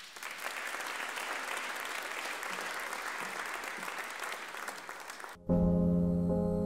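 Audience applauding with steady clapping. A little over five seconds in it is cut off abruptly by gentle music with sustained chords.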